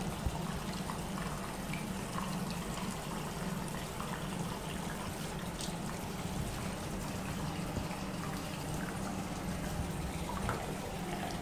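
Tap water running steadily into a bathroom sink while a wet kitten is rinsed and rubbed under it, with a few faint splashes.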